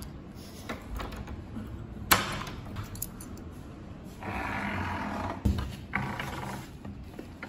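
Key turning in a door-knob lock, then the door being pushed open: a sharp metallic click about two seconds in, a scraping sound lasting about a second a little past halfway, and another click just after it.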